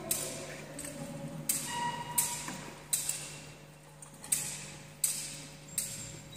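Metal thurible swung in two sets of three strokes, each swing giving a sharp clank of censer and chains with a short ring, about three-quarters of a second apart: incensing the host at the elevation.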